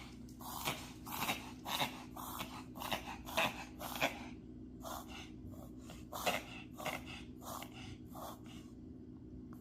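A dog reverse sneezing: a long run of short, rapid, noisy breaths, about two a second, growing fainter near the end. It is an allergic reaction to pollen, which the vet says is not cause for alarm.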